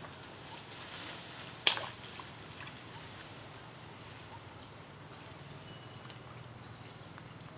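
Forest ambience: a steady hiss with short high chirps recurring about once a second, and one sharp crack about a second and a half in.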